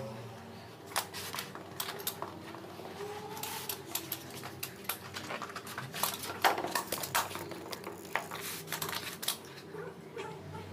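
Scattered clicks, taps and knocks of carpet-fitting hand tools working a carpet seam, the sharpest about six and a half seconds in.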